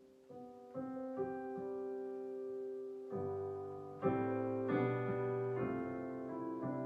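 Yamaha digital piano played slowly and softly: sustained chords struck about once a second, growing fuller and louder about three seconds in.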